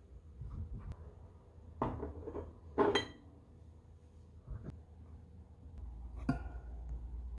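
Glass jars being handled and set down on a desk: four knocks and glassy clinks, the loudest about three seconds in with a short ring.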